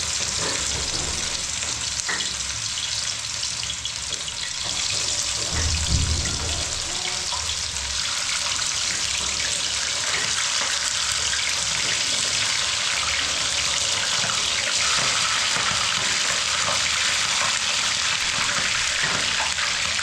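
Fish frying in hot oil: a steady sizzle that grows a little louder about five seconds in.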